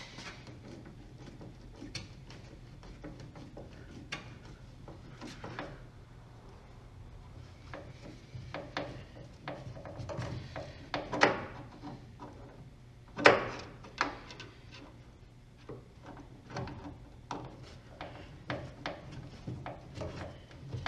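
Irregular knocks, clicks and rubbing of hand work on car parts and tools, the loudest knocks about 11 and 13 seconds in, over a faint steady low hum.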